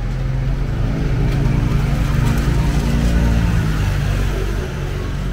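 A motor vehicle engine passing close by, loudest in the middle and fading away about four seconds in.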